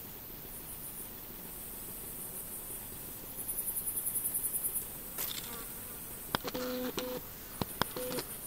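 Bush cricket stridulation in a meadow: a very high, buzzy run of about ten quick pulses lasting about a second and a half, over a steady high hiss of insects. Near the end come a few sharp clicks and a short low buzz.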